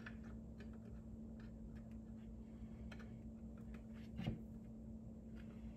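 Faint scattered plastic clicks and taps as a Wallbox Pulsar Plus charger's faceplate is fitted back onto its base, with one louder knock about four seconds in, over a steady low hum.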